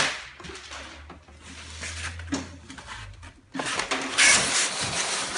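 Plastic wrapping and a cardboard carton being handled while a stand mixer is unpacked: light rustling at first, then loud rustling and scraping of cardboard for the last two seconds.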